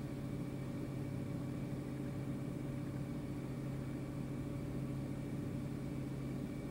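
Steady low hum with a few constant tones over a faint hiss, unchanging throughout.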